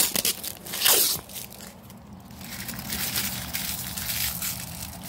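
Clear plastic wrapping crinkling and crackling as it is handled right at the microphone, with two loud crackles in the first second, then lighter, fainter rustling.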